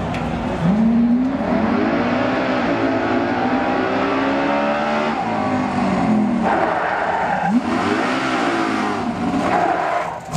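Engine of a drill-team racing cart revving as it drives down the track, its pitch climbing about half a second in, holding, dropping around five seconds, then climbing and falling again near eight seconds.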